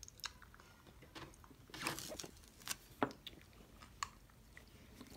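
Faint mouth noises and small clicks as sticky Warheads sour hard candies are pushed into the mouth and chewed, a few scattered short clicks and smacks.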